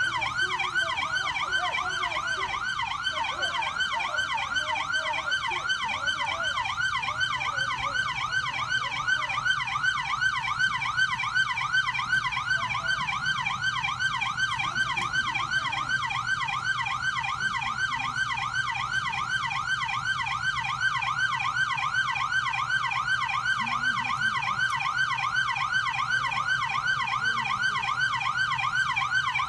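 Police car siren on the fast yelp setting: a rapid, unbroken cycle of quick rising sweeps, with a steady low hum underneath.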